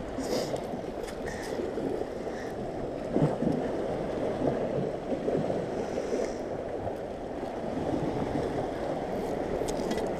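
Steady low rushing of wind and lapping waves at a concrete shoreline, even and unbroken throughout.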